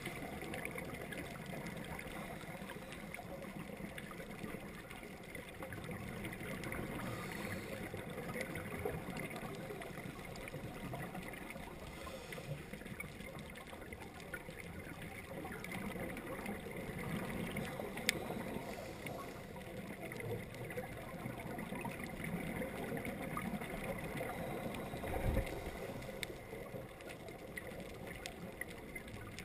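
Underwater ambience heard through a GoPro's waterproof housing: a steady muffled rush with many faint scattered clicks, swelling and easing every few seconds as the scuba diver breathes out bubbles. A single low thump near the end.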